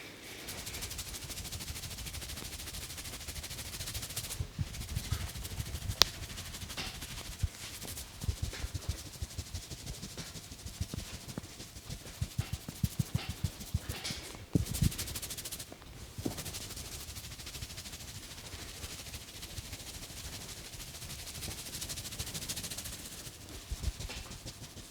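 Hands giving an Indian head massage: fingers rubbing through hair and over the scalp with a steady hiss. Between about four and sixteen seconds in come rapid runs of tapping and patting strokes on the head, with one sharper snap about six seconds in.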